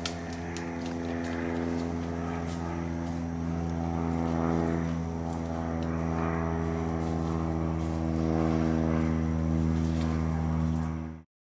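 An engine running at a steady speed: a low drone at one unchanging pitch, which cuts off abruptly near the end.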